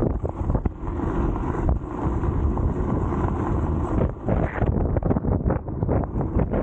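Wind buffeting the camera microphone during an off-road electric scooter ride, with a dense low rumble and frequent knocks and rattles from riding over rough ground.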